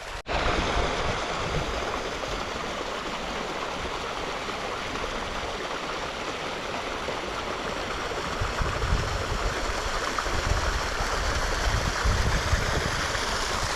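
Shallow creek water running steadily as a continuous rushing hiss, with a low rumble joining in about halfway through.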